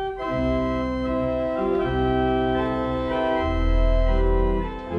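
Slow organ music: long held chords that change every second or so, with a deep bass note coming in about three and a half seconds in.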